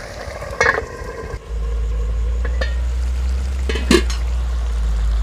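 Pot and lid clinking twice, the second knock the louder, over cooking in a covered pot. About one and a half seconds in, a steady low hum starts abruptly and continues.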